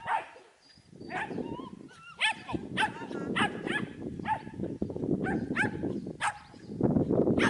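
Shetland sheepdog barking repeatedly, about eight short sharp barks spread over a few seconds. A steady low rushing noise runs underneath and grows louder near the end.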